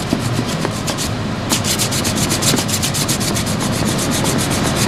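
Hand block-sanding of hardened body filler (Evercoat metal glaze) on a plastic door trim piece, with sandpaper wrapped on a wooden block: quick back-and-forth rasping strokes, several a second, with a brief pause about a second in. It is the filler being blocked down to shape.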